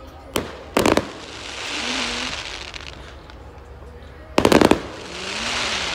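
Aerial firework shells bursting: a single bang, then a quick cluster of bangs about a second in, followed by a swelling, fading crackling hiss as the glittering stars burn out. A second rapid cluster of bangs comes past four seconds in, again followed by the swelling hiss.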